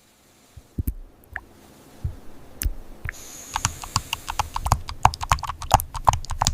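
Typing on a computer keyboard: a few scattered keystrokes, then quick continuous typing from about three and a half seconds in, with a faint hiss behind it.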